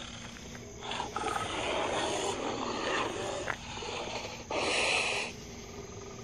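An unseen wild animal calling in the dark with noisy, unpitched sounds: a long call from about one to three and a half seconds in, then a shorter, louder one near five seconds.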